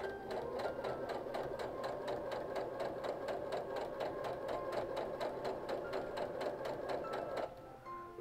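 Domestic sewing machine running a straight stitch at an even rhythm through layered quilting cotton, then stopping shortly before the end.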